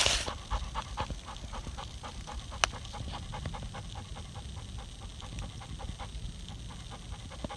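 Golden retriever panting quickly and evenly, with one sharp click about two and a half seconds in.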